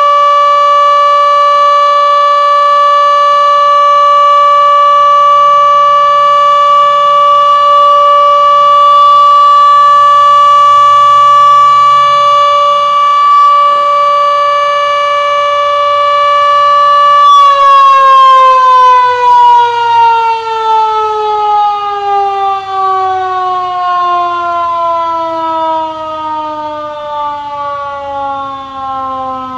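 Denver outdoor warning siren sounding a steady, loud tone. About seventeen seconds in it shuts off and winds down, its pitch falling steadily as the rotor slows.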